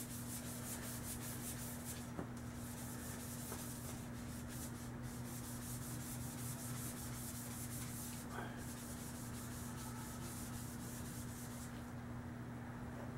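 Quick back-and-forth rubbing of a gloved hand polishing the metal of a Crosman 760 air rifle to shine it up. The rubbing stops about a second before the end, and a steady low electrical hum runs underneath.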